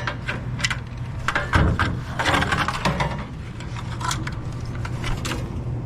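Hands working on a furnace control board and its wiring: irregular clicks, rubbing and scraping of plastic and metal parts over a steady low hum.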